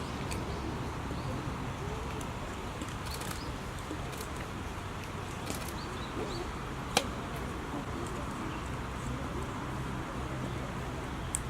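Outdoor ambience: a steady low rumble with faint, scattered short bird chirps, and a single sharp click about seven seconds in.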